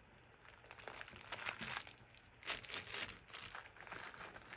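Plastic bags of craft beads crinkling and rustling as hands rummage through bagged supplies, in irregular bursts that are busiest in the middle.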